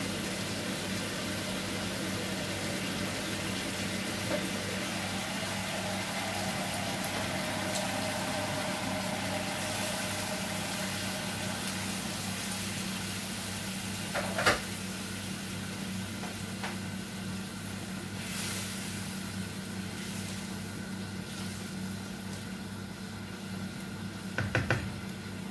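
Chicken livers sizzling in a frying pan on a gas burner, a steady sizzle throughout. A single sharp knock comes about fourteen seconds in, and a wooden spatula clicks against the pan near the end as the livers are stirred.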